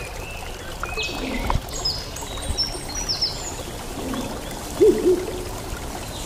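Birds calling over the steady trickle of running water: several short high chirps in the first half, then two short low calls in quick succession about five seconds in.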